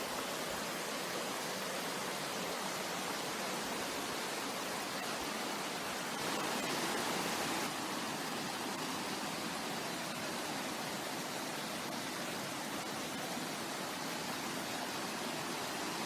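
Mountain stream water rushing, a steady even hiss-like flow that gets briefly louder for a second or two just past the middle.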